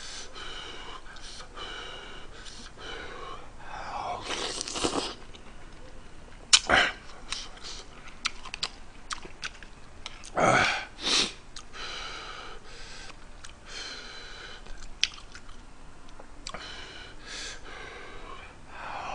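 Close-up eating sounds: spicy ramyeon noodles slurped loudly three times, about four and a half seconds, ten and a half seconds and eleven seconds in. Between the slurps there is wet chewing with small lip-smacking clicks, and one sharp click about six and a half seconds in.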